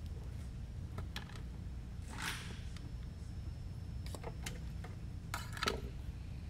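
Scattered light clicks and taps of small parts and tools being handled on a workbench, with a brief rustle about two seconds in and a short rattle, the loudest sound, near the end, over a steady low hum.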